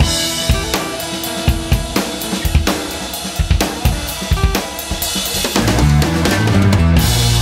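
Rock music: a drum-kit beat with kick, snare and cymbals, joined by a heavier bass line about five and a half seconds in.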